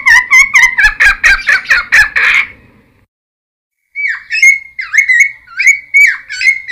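Cucak timor, a friarbird, singing: a fast run of harsh, repeated squawky notes for about two and a half seconds. After a second's pause a slower series of hooked, down-sliding notes follows.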